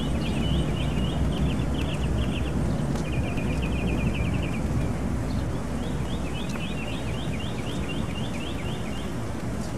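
Quick, evenly repeated chirps from a small bird or insect, in runs of one to three seconds, over a steady low rumble.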